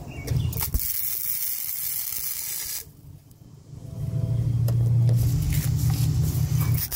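MIG welder laying a spot weld on a steel patch panel: a dense crackling hiss for nearly three seconds that then stops. After a short pause a low steady hum follows.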